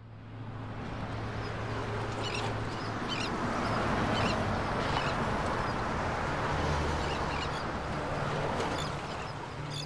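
River water rushing steadily, with short bird calls over it from about two seconds in and a low steady hum underneath.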